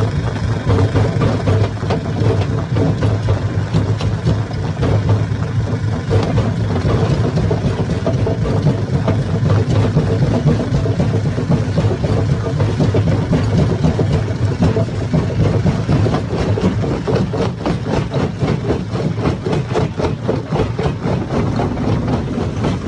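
Hammer stone crusher running loud and steady, with a low hum under a dense, continuous rattle and knocking of stone being broken. The knocking grows thicker in the last several seconds.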